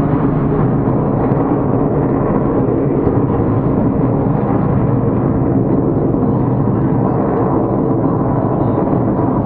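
Engines of a formation of aerobatic display aircraft passing overhead: a loud, steady, deep rumble.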